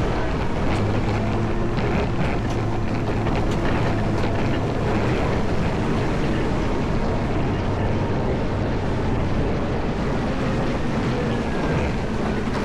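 Caterpillar 140M motor grader's diesel engine running steadily, with a continuous rushing noise over its low hum.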